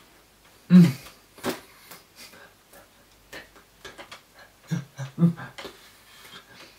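Short voiced grunts and breathy mouth sounds from a person signing, one about a second in and a few more around five seconds in, with scattered soft taps and claps of the hands.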